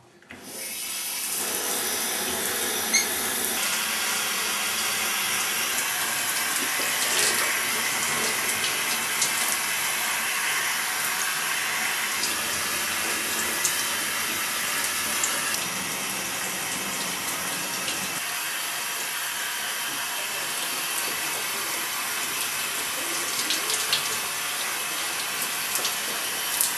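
Shower turned on at the wall valve: the spray builds up over the first second or so, then runs steadily as a even hiss onto a person in a tiled shower stall.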